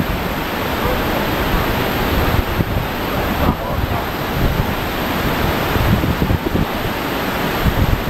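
Muddy water surging and washing up over a sloping stone bank in a steady rush, with wind buffeting the microphone.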